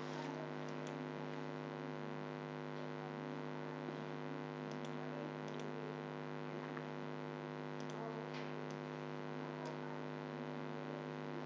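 Steady electrical hum picked up by the recording microphone, with a few faint clicks, like mouse clicks, scattered through it.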